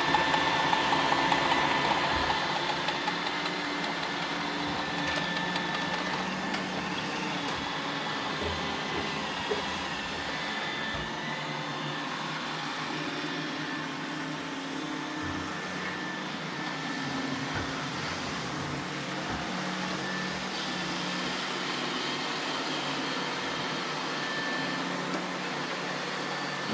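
Roomba robot vacuums running: a steady whir of suction and brush motors with several faint steady tones, a little louder for the first couple of seconds.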